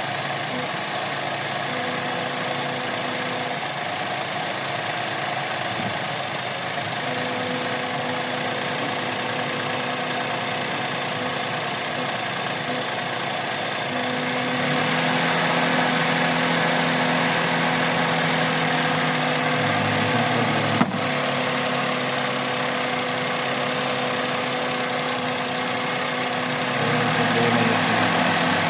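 Suzuki Celerio engine idling with the uneven, hiccuping run of a misfire. About halfway through, the idle gets louder and a new steady hum joins in, as when the air conditioning is switched on. One sharp click comes a few seconds later.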